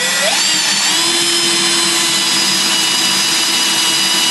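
Electric drill boring a Forstner bit into a softwood board, cutting a hole that overlaps an existing one. The motor whine rises as it spins up over about the first second, then holds steady under the cutting noise.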